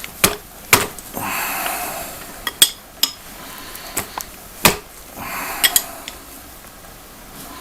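Metal spanners clinking on a motorcycle fork's top cap: a string of sharp metallic clinks about once a second, with two longer scraping noises between them.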